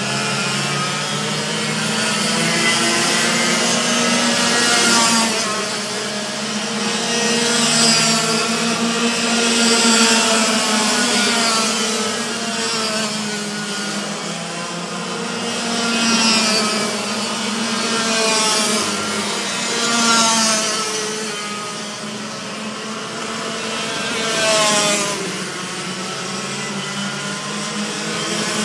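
Several racing kart engines buzzing at high revs, their pitch rising and falling as the drivers brake and accelerate through the corners. The sound swells each time a kart passes close, about six times, over a hiss of tyres throwing spray on the wet track.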